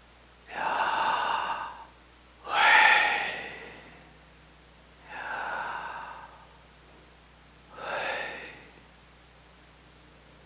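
A man's slow, deep breaths into a lectern microphone: four audible breaths, in and out twice, the second the loudest, a long sighing out-breath.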